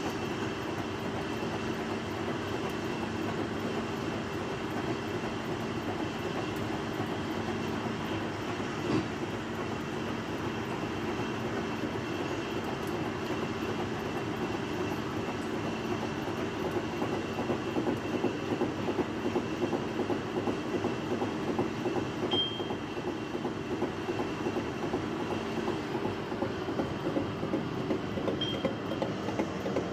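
Large horizontal milling machine face-milling a steel plate: the spindle and gearbox run steadily while the cutter chatters through the cut, turning louder and choppier from about halfway through.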